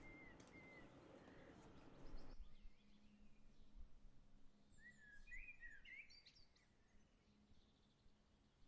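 Near silence with faint birds chirping: a few short chirps over a low background hiss that drops away about two seconds in.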